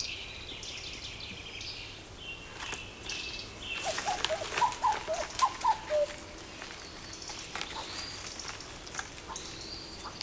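Woodland birdsong: several small birds chirping and trilling in high, quick phrases. In the middle comes a burst of sharp clicks and crackles together with a short run of lower, quickly rising and falling notes.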